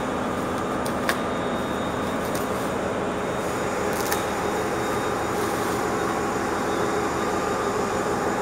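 Steady drone of large diesel generator engines running in a power-plant hall, with a couple of sharp crackles of bubble wrap being pulled off a cabinet.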